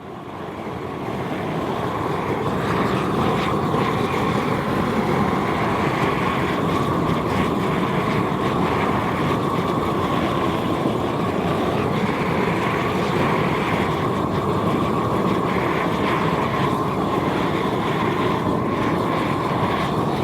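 Propane torch burning steadily, charring the surface of a wooden board. It builds up over the first couple of seconds, then holds one unbroken rushing sound.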